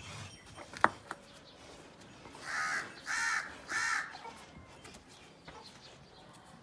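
A crow cawing three times in quick succession, harsh evenly spaced calls. A sharp click comes shortly before, the loudest single moment.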